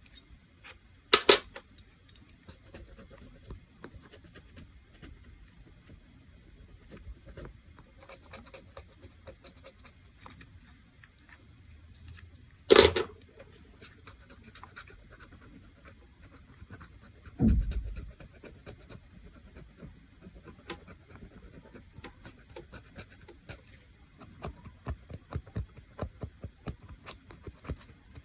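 Small scratching and clicking of manicure tools working on fingernails, with two sharp clicks and a dull thump of tools or a hand knocking on the table.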